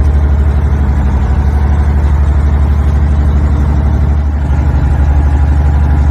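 Fishing boat's engine running steadily underway: a loud, low drone with a fast, even pulse.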